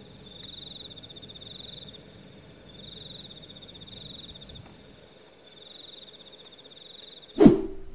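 A high, rapidly pulsed animal trill in repeated bouts of about a second and a half with short pauses between them, a night-time frog or insect call. Near the end a single loud bump cuts in.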